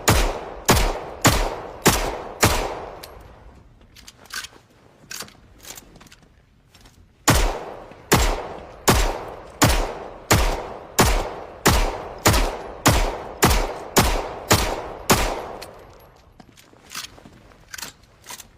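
Browning Hi-Power pistol fired in steady strings, about two shots a second, each shot followed by an echoing tail. About five shots open the stretch, then a pause with a few faint clicks, then a string of about fifteen more shots, then faint clicks again.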